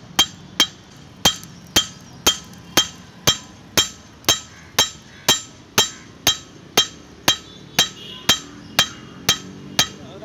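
Hand hammer striking a steel meat cleaver blade on an anvil in a steady rhythm of about two blows a second, each blow with a short metallic ring.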